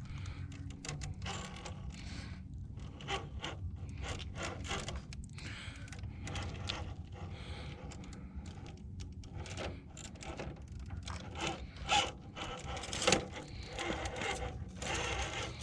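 Traxxas TRX-4 scale RC crawler climbing through a rocky line: irregular scraping and crunching of its tyres and chassis on rock and dirt over the steady low drone of its brushed motor and drivetrain.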